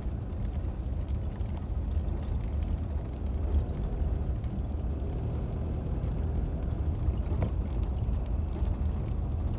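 A car driving at low speed, its engine and tyre noise a steady low rumble as heard from inside the cabin.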